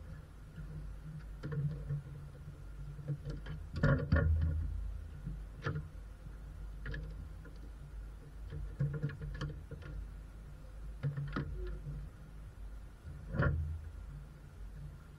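Scattered clicks and knocks of hands working plastic and metal parts at the base of the windscreen, fitting the plastic cowl panel, with the loudest knocks about four seconds in and near the end. A low rumble runs underneath.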